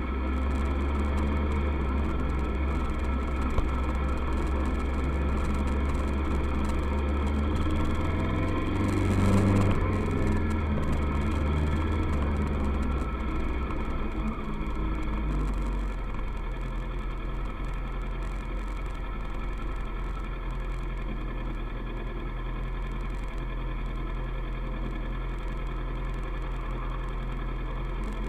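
Kawasaki ER-6f's parallel-twin engine running steadily under way, swelling briefly about nine seconds in, then settling to a lower, steadier rumble from about halfway.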